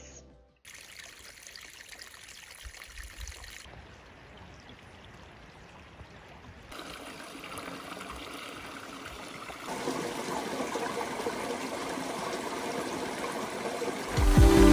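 Small woodland stream trickling over rocks, a steady water noise that grows louder in a few sudden steps. Music comes in at the very end.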